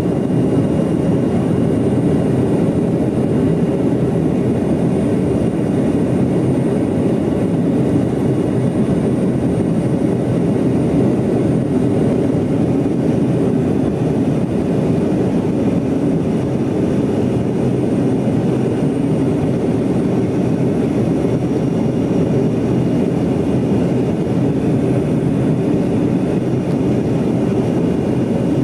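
Steady cabin noise of a Yakovlev Yak-40 airliner in flight, its three rear-mounted Ivchenko AI-25 turbofan engines heard from inside the cabin as a constant low drone.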